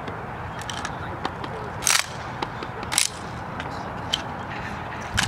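Drill rifles handled in unison at inspection arms: two sharp clacks about a second apart as hands slap the rifles and the actions are worked, with a few smaller clicks over steady background noise.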